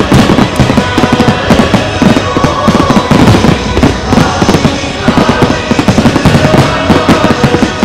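A dense barrage of aerial firework shells bursting in rapid succession, many bangs a second with crackle, over loud music with held tones.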